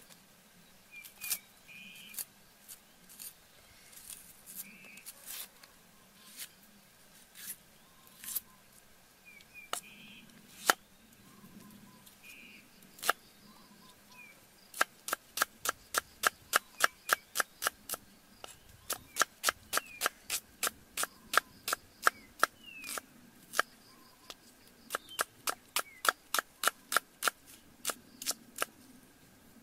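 Steel cleaver striking a wooden chopping block as red onion is cut: scattered single knife taps at first, then from about halfway a fast run of chopping, about three to four strokes a second in short bursts.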